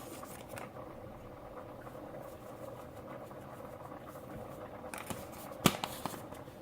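A black pepper container being handled while seasoning the chicken: faint tapping over a steady low hum, then a cluster of sharp clicks and one loud knock between about five and six seconds in.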